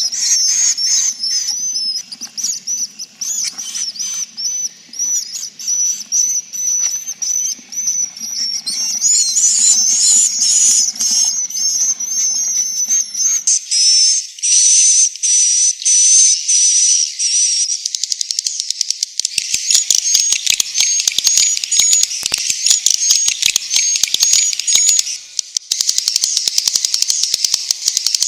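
A recording of many swiftlets twittering in a dense, high-pitched chorus of chirps, the 'inap' roosting call used to lure swiftlets into nesting houses. The mix changes abruptly several times, and rapid clicking joins the chirps in the second half.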